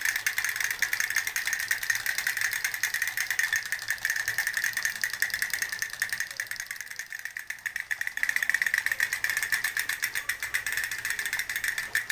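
Rapid, continuous mechanical rattling, a fast run of clicks that eases briefly about seven seconds in and then comes back.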